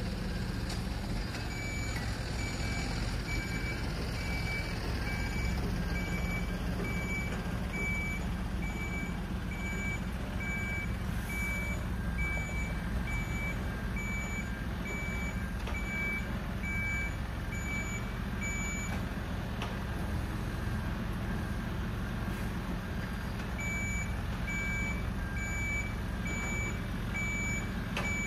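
Mercedes-Benz Atego 1524 skip-loader truck reversing, its reversing alarm beeping in an even rhythm of about one and a half beeps a second over the steady running of its four-cylinder diesel engine. The beeping stops for about four seconds two-thirds of the way through, then resumes.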